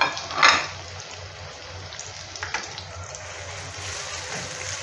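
Chopped onions sizzling in hot oil, freshly added and frying toward brown, stirred with a wooden spoon. A louder burst of sizzling comes about half a second in, with a few short scrapes of the spoon later.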